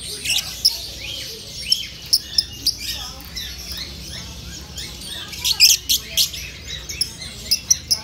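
Cockatiels chirping: many short, sharp chirps and calls from several birds at once, busiest and loudest about five to six seconds in.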